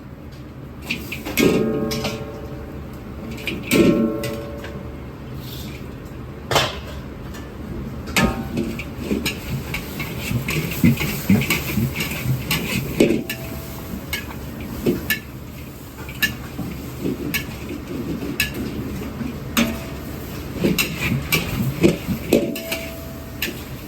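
Kitchen clatter of metal cookware and utensils: irregular knocks and clicks, with a few short metallic clangs that ring briefly.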